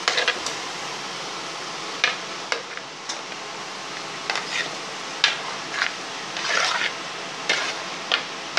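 Steel spoon scraping and clinking against a plate and the rim of an aluminium pot as fried chicken pieces are spooned in, a stroke every second or so. A steady sizzle of masala gravy frying in the pot runs underneath.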